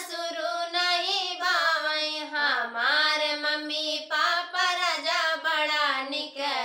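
Two women singing an Awadhi folk dance song (nach geet) together, drawing out long, wavering notes.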